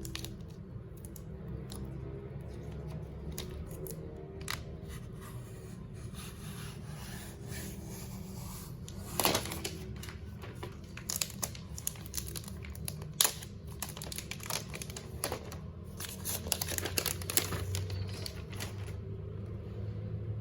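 Packaging being handled and opened: plastic and paper crinkling and tearing, with scattered sharp clicks and taps, the loudest about nine and thirteen seconds in.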